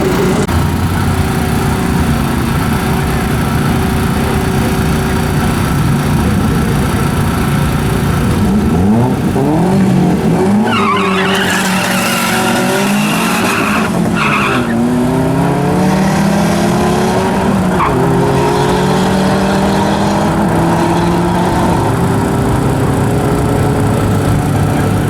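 Nissan QG18 four-cylinder engine of a Y11 running steadily, then revving up hard about nine seconds in. Its pitch climbs and drops back at each gear change, with a burst of tyre squeal around eleven to fourteen seconds in.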